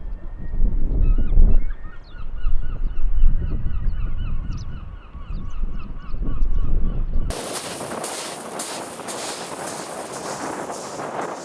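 Birds honking in rapid repeated series, over a low rumble, for about the first seven seconds. Then an abrupt cut to a loud, steady rushing noise.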